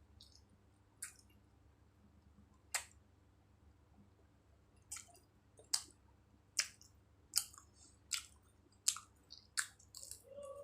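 Close-miked mouth sounds of someone chewing food: sharp, wet smacking clicks, sparse at first and then coming regularly a little more than once a second in the second half, with a brief low hum near the end.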